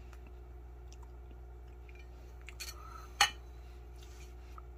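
Faint eating sounds, then a plastic spoon set down on a ceramic plate: a short scrape and one sharp click about three seconds in.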